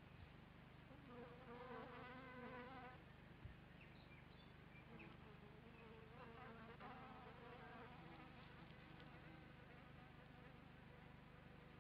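A fly buzzing faintly in two spells of a second or two, its pitch wavering, over a steady low hum.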